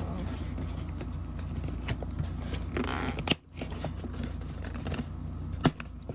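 Packaging and small items being handled: scattered rustling and light clicks, with a sharper click about three seconds in and another near the end, over a steady low hum.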